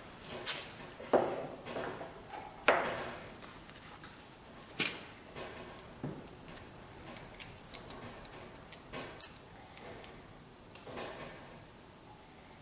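Scattered metallic clanks and clicks, a dozen or so separate knocks of steel on steel, as bent steel stock and metal-bender parts are handled and reset.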